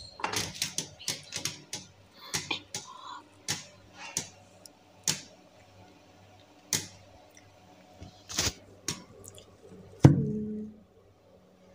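Irregular sharp clicks and light knocks, a few each second at first and sparser later, over a low steady hum. A louder knock comes about ten seconds in, with a short pitched sound after it.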